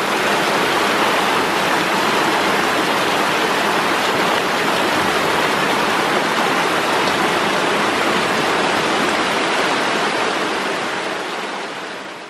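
Rain-swollen mountain stream pouring down a rock gully as a waterfall close by: a loud, steady rush of water, swollen by a couple of hours of rain. It fades out near the end.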